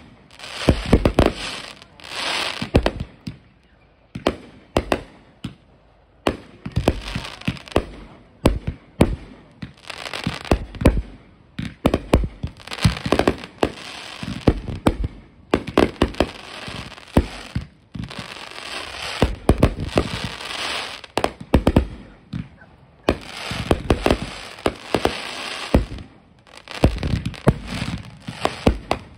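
Aerial fireworks going off overhead in quick succession: loud sharp bangs, each followed by dense crackling, in clusters every couple of seconds with brief pauses between.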